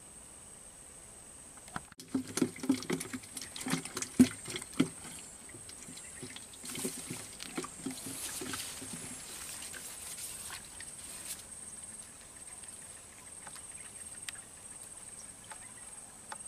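Handling noise from casting a float rod in swamp grass: a quick run of irregular knocks and rustles for about three seconds, then a softer rustle. Under it all runs a steady high insect buzz.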